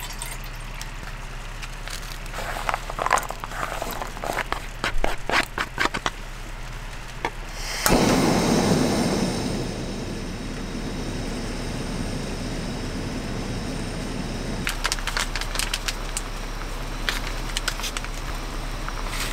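Clicks and knocks of the pot and stove being handled, then about eight seconds in a camping gas stove lights with a sharp click and its burner runs with a steady hiss under the pot. A few light clicks near the end.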